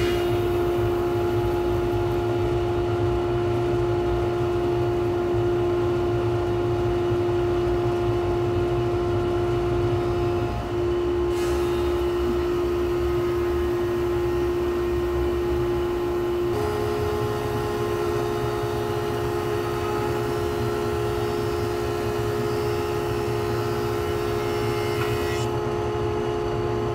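20-inch, 5 hp thickness planer running as boards are fed through it, with its dust collection pulling through the hose: a steady machine drone under a held whine. A second, slightly higher whine joins about two-thirds of the way through.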